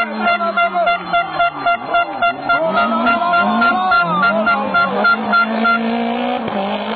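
Rally car engine revving, its pitch rising and falling, over a horn sounding in quick repeated toots, about three a second, that stop about six seconds in.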